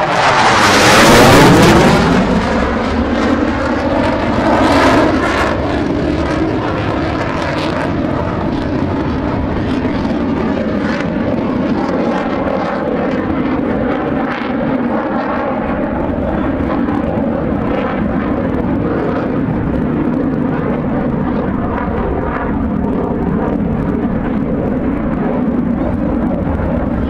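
Fighter jet passing overhead: a loud rush whose pitch drops steeply in the first two seconds as it goes by, with a smaller swell a few seconds later. After that the jet engine noise carries on steadily as the aircraft flies away.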